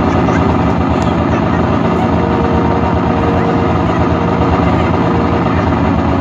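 Loud, steady rumbling noise played over a stage sound system as a dramatic sound effect, with a few faint clicks.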